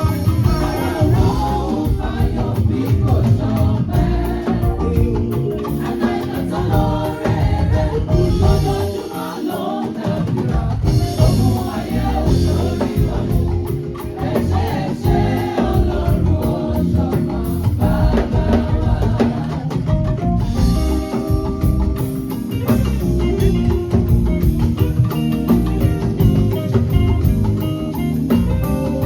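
Gospel choir singing with a live band, with drum kit and percussion keeping a steady beat. The bass and drums drop out for about a second, roughly nine seconds in.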